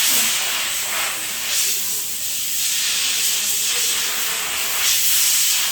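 A loud, steady hiss of pressurised air jetting out, running for about six seconds with slight swells.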